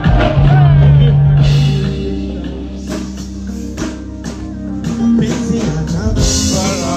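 Live band music over a PA system: a heavy sustained bass note, drums and held instrument tones, with brief snatches of voice near the start and the end.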